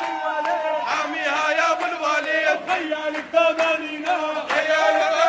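A crowd chanting together, with hand clapping throughout.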